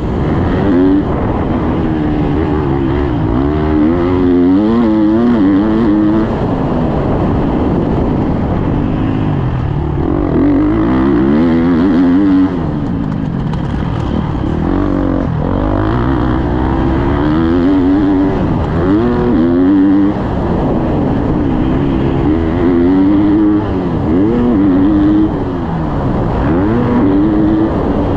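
Husqvarna motocross bike's engine revving up and down again and again as the throttle is worked around the track, with short drops where the throttle is chopped.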